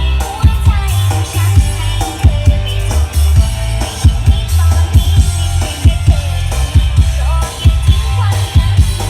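Music with a heavy, tight bass and a drum beat, played loud through a turbo bass cabinet with four 18-inch woofers.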